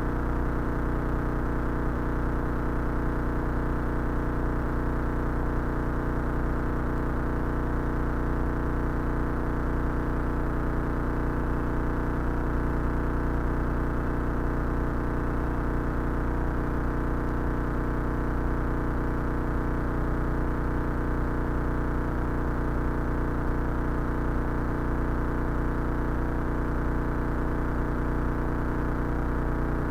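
Cessna 172 engine and propeller droning steadily on final approach to landing, a dense, unchanging hum of many tones.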